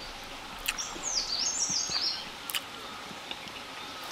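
A songbird sings a quick run of high notes that jump up and down in pitch, lasting about a second and a half, over a steady outdoor background. There is a short sharp click just before the song and another about a second after it.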